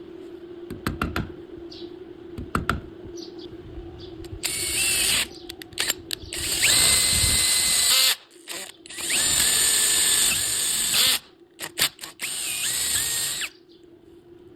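Electric drill run in four short bursts of one to two seconds, the whine rising as the motor spins up and then holding steady. Sharp clicks and knocks come between the runs.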